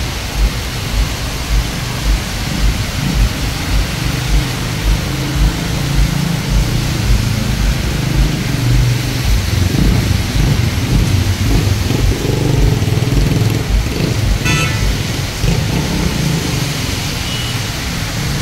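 Steady hiss of rain and tyres on a wet street, with cars passing as a rumble that swells and fades, and frequent low thumps throughout.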